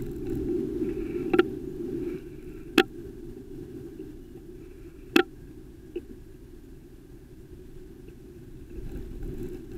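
Steady low rumble of wind and road noise on a bicycle-mounted camera while riding, louder at the start and again near the end, with four short sharp knocks spread through the first six seconds.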